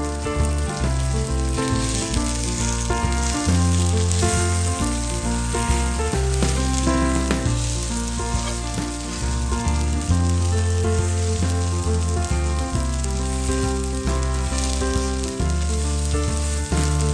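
Potato-poha cutlets shallow-frying in oil on a cast-iron pan, a steady sizzle, under background music with a stepping melody and bass line.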